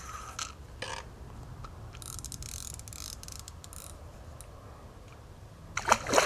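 Fixed-spool fishing reel being worked while playing a hooked fish, with a run of rapid ratchet-like clicks about two seconds in. A louder knock comes near the end.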